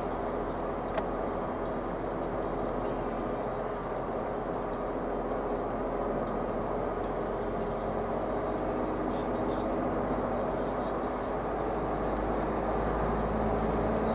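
Škoda Fabia II's 1.2 TDI three-cylinder diesel engine running under way, heard from inside the cabin together with tyre and road noise. There is a single click about a second in, and the engine grows slightly louder near the end.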